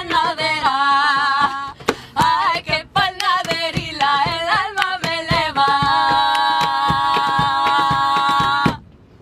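Female voices singing a traditional folk song over a steady beat of hand percussion. The song ends on a long held note that cuts off abruptly near the end.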